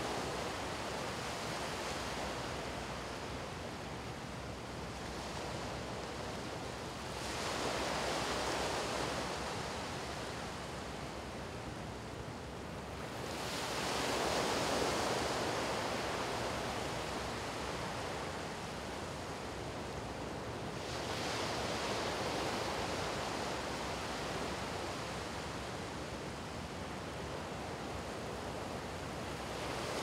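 Small waves breaking and washing up on a sandy beach, the surf swelling and easing in slow surges every several seconds.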